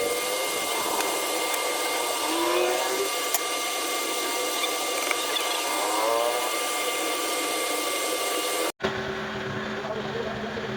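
A machine running with a steady hiss, with a few short squeaky chirps over it. It cuts off abruptly about nine seconds in, and a quieter, lower hum takes its place.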